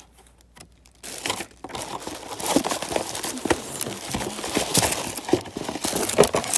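Packing paper being crumpled and rustled by hand, a dense run of irregular crinkles and crackles starting about a second in.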